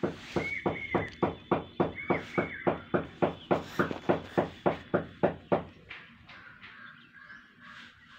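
A quick, even run of about twenty sharp knocks, roughly three and a half a second, stopping about five and a half seconds in, with birds chirping.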